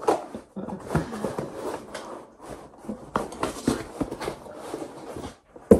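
Cardboard laptop box being handled and pulled open: irregular scraping, rubbing and tapping of cardboard, with a sharp knock near the end.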